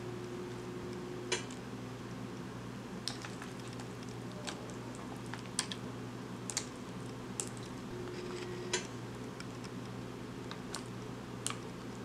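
Steel pan of soup on a portable burner: a steady low hum with scattered sharp clicks and small pops, and a metal spoon clinking against the pan as chili oil is added.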